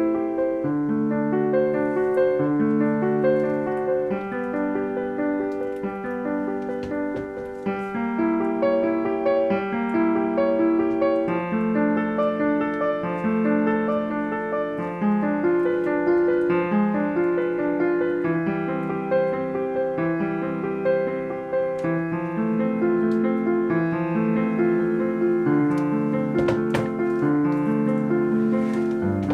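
Background piano music: a slow run of held notes and chords.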